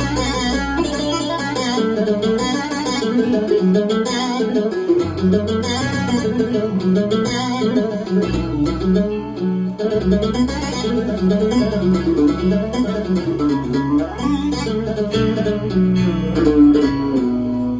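Korg Pa5X arranger keyboard playing music from a custom sound pack: a fast, winding plucked-string lead melody over held bass notes that change every few seconds.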